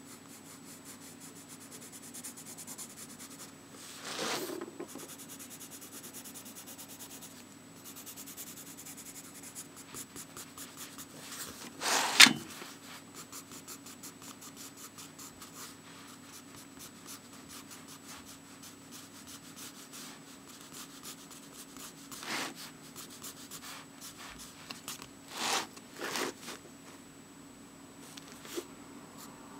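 Ink pen scratching on paper in many short strokes while inking over a pencil drawing. A few louder brushes or knocks stand out, the loudest about twelve seconds in, over a faint steady hum.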